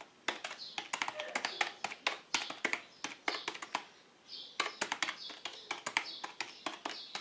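Logitech K235 membrane keyboard being typed on rapidly: a fast run of soft plastic key clicks with a short pause a little past halfway. Not really loud.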